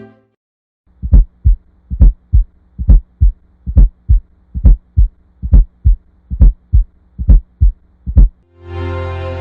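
Heartbeat: the first and second heart sounds beating as steady paired lub-dub thumps, about eight pairs at a little over one beat a second. Background music fades back in near the end.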